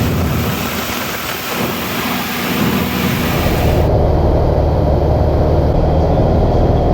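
Cessna 150's four-cylinder piston engine droning steadily in flight, heard from inside the cabin along with wind hiss. About four seconds in, the hiss cuts off abruptly and the low engine drone comes to the fore.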